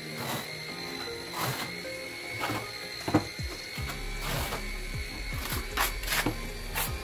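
Background music over scattered knocks, clicks and scrapes of tile-setting work: a ceramic wall tile being tapped and pressed into mortar, then a steel trowel scraping mortar out of a plastic bucket near the end.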